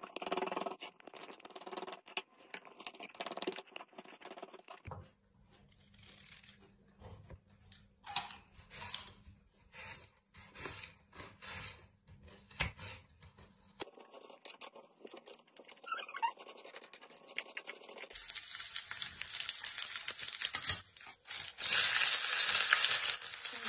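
A kitchen knife chopping garlic and ginger, then carrots, on a wooden cutting board, a run of quick sharp chops. About three quarters of the way in, oil starts sizzling in a stainless steel pan, a steady hiss that swells loudest near the end as chopped garlic and ginger go into the hot oil with cumin.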